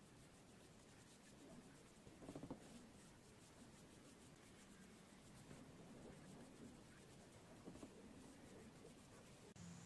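Faint swishing and scratching of a flat watercolour brush stroking a wash across journal paper.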